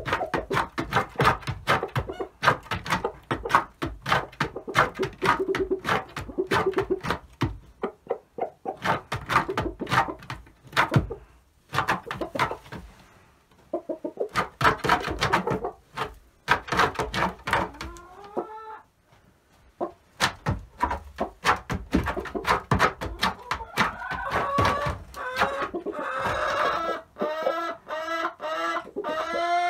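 Domestic hens in a nesting box clucking in quick runs of short notes, broken by brief pauses. Toward the end come longer, rising-and-falling squawking calls.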